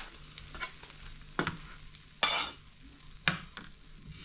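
Metal spoon scraping and tapping through fried eggs on a plate: several short scrapes about a second apart, the longest about two seconds in.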